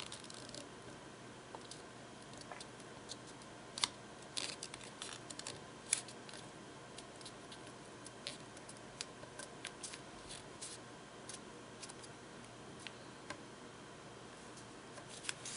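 Origami paper being folded and creased by hand: faint, scattered crinkles and taps, the sharpest about four and six seconds in.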